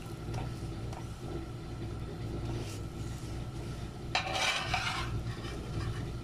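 Metal spatula scraping and tapping against a non-stick frying pan as it is worked under a cooking aloo paratha to turn it, with light clicks early on and a longer, louder scrape about four seconds in. A steady low hum runs underneath.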